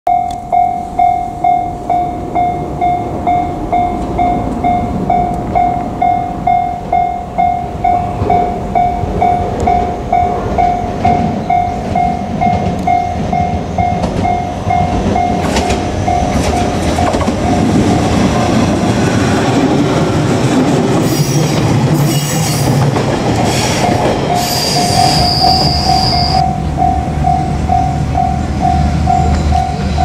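Japanese level-crossing warning bell ringing steadily at about two strokes a second while a JR Kyushu 817-series electric train runs through the crossing. Wheel clatter and rumble build in the second half, with a brief high wheel squeal or whine near the end.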